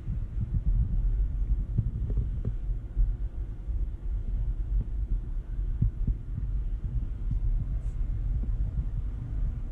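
Low, uneven rumble with many soft thumps: handling and movement noise on a handheld camera's microphone.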